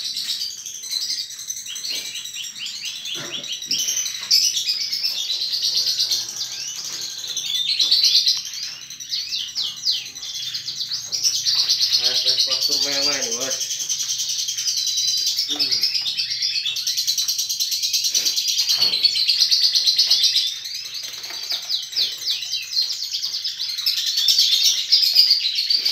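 Many caged canaries singing and chirping at once, a dense chorus of fast trills and warbles that never lets up.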